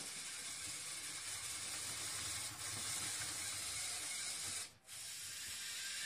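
LEGO Mindstorms EV3 motors and gear trains of a six-axis LEGO robotic arm running: a steady hissing whir that cuts out for a moment near the end.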